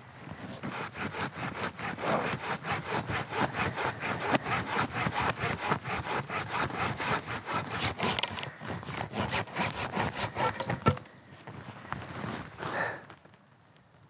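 Hand saw cutting through a dead log with rapid back-and-forth strokes, which stop about eleven seconds in with a sharp crack.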